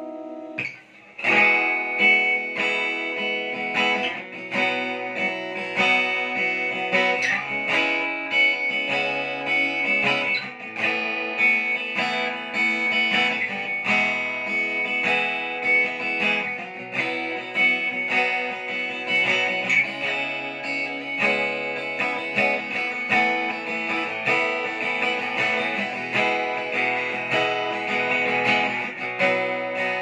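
Tayste Infinity 40-inch acoustic guitar with a spruce top and walnut back and sides, strummed and picked by hand. A held chord fades, and about a second in the playing starts again and runs on steadily.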